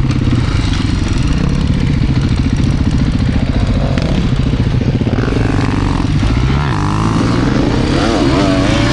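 Beta RR390 X-Pro single-cylinder four-stroke enduro motorcycle running hard under load in deep sand, its pitch rising and falling with constant throttle adjustments, more noticeably near the end.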